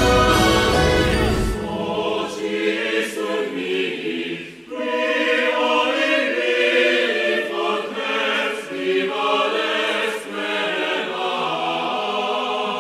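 Orchestral music with a heavy bass for the first second and a half, then a choir singing long held chords with no bass beneath.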